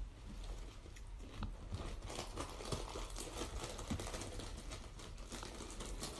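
Close-up chewing of food, with a stream of small crackly crunches that grows denser about two seconds in.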